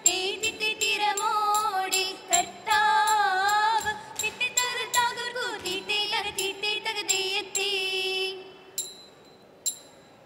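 Women's voices singing a Margam Kali song, with sharp rhythmic strikes of small hand cymbals and claps keeping time. The singing stops about eight seconds in, leaving a few lone ringing cymbal strikes.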